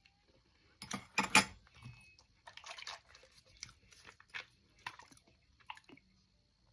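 Close-up biting and chewing of air-fried chicken thigh dressed with salad dressing and scallion oil: a loud crunchy bite about a second in, then wet chewing with small crunches and mouth clicks.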